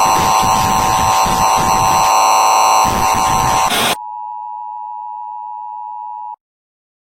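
Harsh broadcast interference: loud static with several steady shrill tones mixed in. About four seconds in it cuts off abruptly to a single steady test tone, which stops dead a couple of seconds later.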